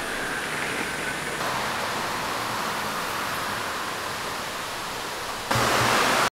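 Steady rushing, hiss-like outdoor noise with no clear single source, growing louder for the last second.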